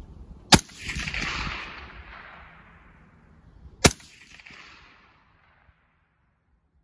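Two rifle shots from a suppressed AR-style rifle chambered in 300 Blackout, about three seconds apart, each followed by an echo that fades out over a second or two.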